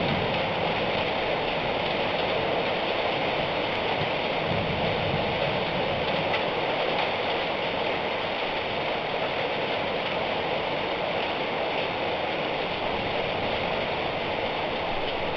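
Heavy rain falling steadily in a thunderstorm: an even, unbroken hiss with no thunderclap.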